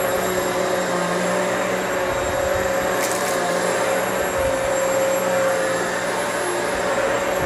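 Hoover Elite Swivel XL Pet upright vacuum running steadily, with a constant motor hum. About three seconds in there is a brief high crackle.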